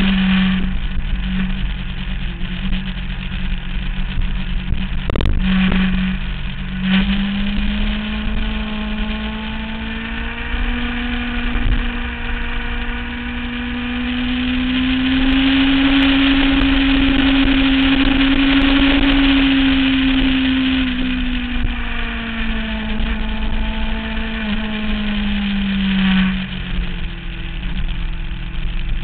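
A 2009 Kawasaki ZX-6R's inline-four engine running under way, its note climbing steadily for several seconds, holding high, then falling off again, with a couple of brief dips in the note about five to seven seconds in. Wind rush over the bike rises and falls with the revs.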